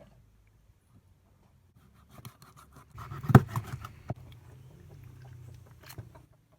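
A run of sharp clicks and knocks over a faint low hum, starting about two seconds in, with the loudest single knock about three and a half seconds in and a last click near the end.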